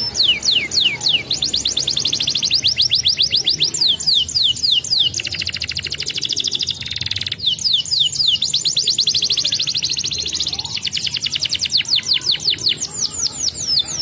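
Domestic canary singing a fast, rolling song. Quick series of falling whistled notes run into long runs of rapid repeated notes, with a very fast buzzing trill about five seconds in that lasts a couple of seconds.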